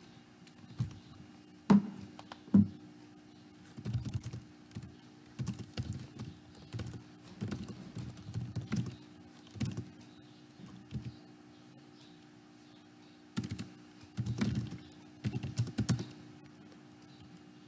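Typing on a computer keyboard: quick runs of key clicks in two spells with a pause in between, after a couple of louder single clicks near the start.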